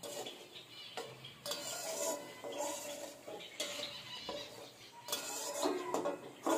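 A flat metal spatula stirring and scraping through bubbling curry gravy in an aluminium kadai, in repeated strokes with clinks of metal on metal.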